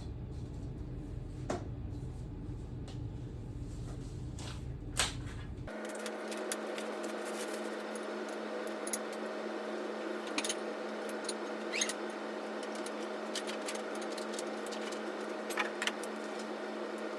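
Scattered light clicks and taps of grow-tent frame poles and connectors being handled, over a steady background hum. About six seconds in, the low part of the hum cuts out abruptly and a thinner steady tone is left.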